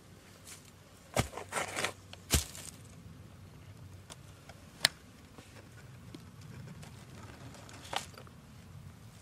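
Footsteps on dry leaf litter and twigs: a few separate crunches and snaps in the first two and a half seconds, a sharp crack about five seconds in, and another near the end.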